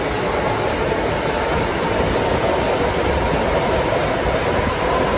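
Heavy monsoon rain pouring down steadily, a dense even hiss, with a faint steady hum running under it.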